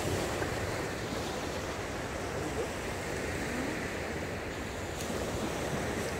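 Surf washing onto a sandy beach, a steady rushing of waves with some wind on the microphone.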